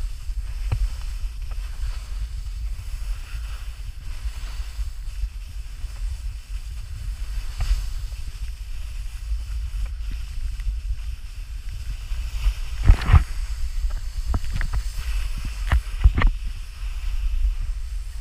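Wind buffeting an action camera's microphone during a snowboard run, a steady low rumble. About two-thirds of the way through there is a cluster of sharp knocks and brief scrapes.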